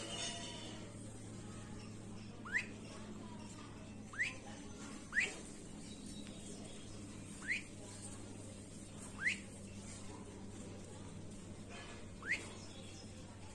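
Duckling peeping: six short, high peeps, each rising sharply in pitch, spaced one to three seconds apart, over a faint steady low hum.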